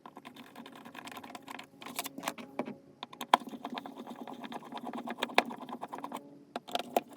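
Hand tools and plastic parts clicking and tapping irregularly as a GFCI outlet's cover plate and mounting screws are undone and the receptacle is pulled from the wall.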